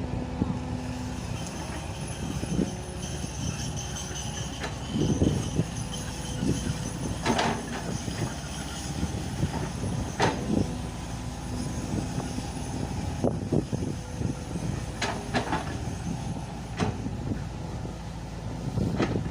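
Hitachi excavator working, its diesel engine running steadily with hydraulic whine. Several sharp metallic clanks and squeals come through it, about four times.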